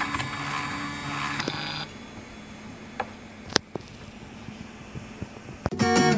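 Bipolar stepper motors of a homemade automatic wire cutter-stripper whine steadily as the machine feeds or cuts the wire, and stop about two seconds in. A few sharp clicks follow, and music starts at the very end.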